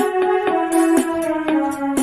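A melody picked out note by note on a small electronic mini keyboard with a piano-like tone. The line steps slowly downward in pitch, with a crisp attack on each note.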